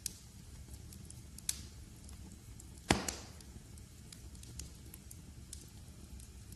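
Log fire crackling in a fireplace: scattered sharp pops over a steady low noise, with one loud snap about three seconds in.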